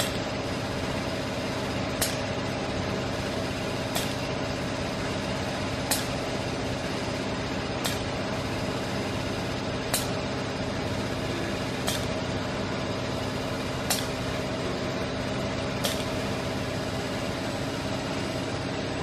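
Automated SCARA soldering robot working: a steady machine hum with a short sharp click about every two seconds, in an even cycle.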